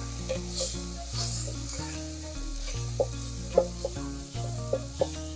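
Chopped onions and tomatoes sizzling in oil in a metal pot while being stirred with a wooden spoon, which clicks against the pot a few times in the second half, over soft background music.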